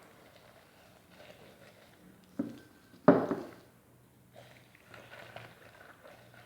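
Two knocks on a kitchen surface: a short light knock, then a louder thump about a second later, amid faint handling sounds as food is worked by hand.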